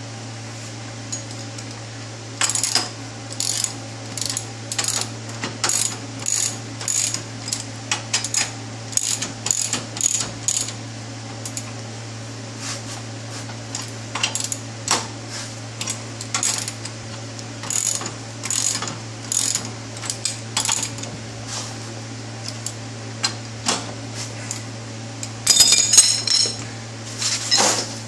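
Hand ratchet clicking in short strokes while tightening the bolts that hold a slide-hammer adapter plate to a rear wheel hub. A louder metallic clatter comes near the end, over a steady low hum.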